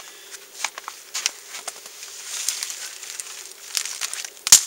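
Dry dead twigs being snapped by hand, a run of sharp cracks with one much louder snap near the end.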